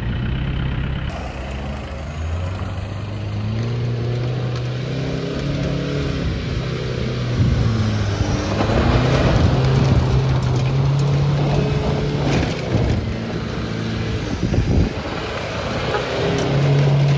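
Isuzu V-Cross pickup's diesel engine working off-road, its revs rising and falling as it labours over rough ground, with scattered knocks and rattles in the middle.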